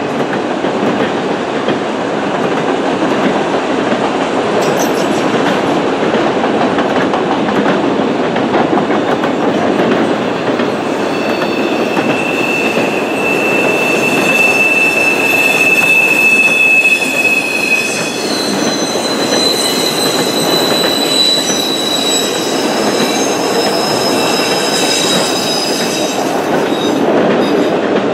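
Multilevel autorack cars of a freight train rolling past: a steady rumble of steel wheels on rail, with a high-pitched wheel squeal setting in about a third of the way through and moving higher after the middle.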